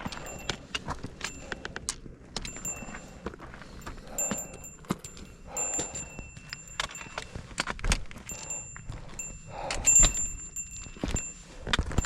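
Hikers' footsteps on a rocky mountain trail: a steady run of irregular clicks and knocks, with metallic jingling from carried gear ringing along with the steps.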